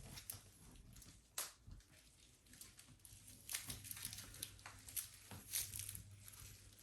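Faint handling noises as a small part is fitted to a child's bike: scattered light clicks and rustles, with one sharper click about a second and a half in.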